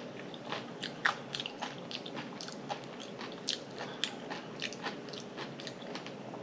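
A person chewing a mouthful of hot water cornbread close to the microphone, with irregular small crunches and wet mouth clicks.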